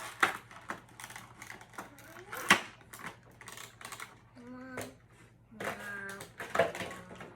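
Irregular light clicks and taps of hard plastic being handled: vinyl figures and small display stands being set down and fitted together, with one sharper knock about two and a half seconds in.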